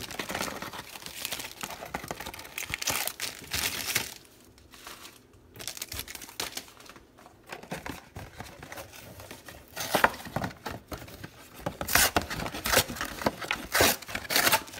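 Hands tearing open a cardboard Fruit Roll-Ups box and handling the plastic-wrapped contents: irregular crinkling and tearing of cardboard and plastic. It goes quieter for a few seconds in the middle, then comes back with sharper crackles near the end.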